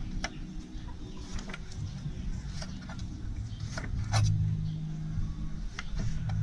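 A small knife slicing a tomato held in the hand, giving a few short, irregular snicks as the pieces are cut off into a clay mortar. About four seconds in, a low steady hum comes up underneath.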